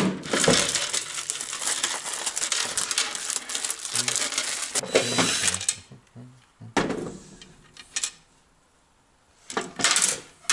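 Hard plastic electrical junction box and its clear lid being handled, with clattering and rattling of plastic parts for the first half. A cordless drill-driver briefly runs on the lid screws about halfway through, followed by a few separate sharp clicks.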